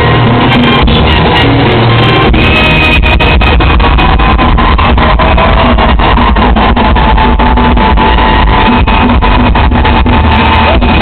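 Live Latin band music with drums and guitar, played loud and recorded from the audience so that it sounds overloaded.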